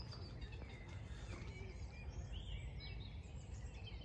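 Songbirds chirping and warbling, with many short high notes, over a steady low rumble.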